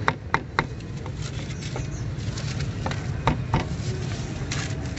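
A cleaver chops braised pork offal on a round wooden chopping block. There are three quick chops right at the start, a few more sharp knocks about three seconds in, and one more near the end.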